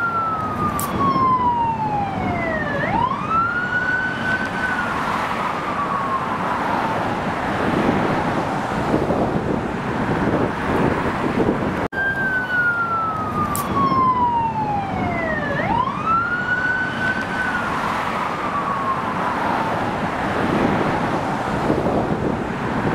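Emergency vehicle siren wailing over steady road traffic noise. The pitch falls slowly, sweeps sharply back up, then sinks slowly again. The same stretch of siren comes round twice, about twelve seconds apart.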